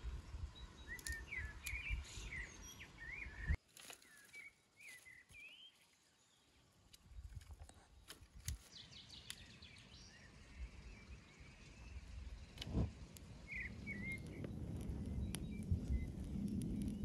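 Songbirds chirping while dry twigs are handled and laid on an iron fire grate with light clicks and snaps. Near the end a wood fire catches, a low steady noise with crackles that grows louder.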